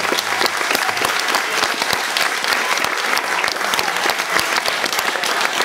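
Audience of schoolchildren and adults applauding: many hands clapping steadily and densely, acknowledging an award winner.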